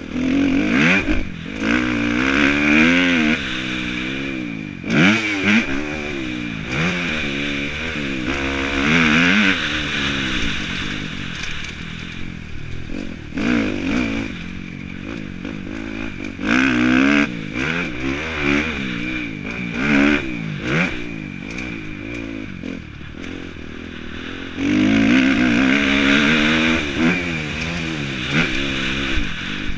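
Kawasaki motocross bike's engine revving up and down over and over as it is ridden round a dirt track, heard from the rider's helmet camera. Wind rumbles on the microphone, with occasional knocks from the bike over bumps.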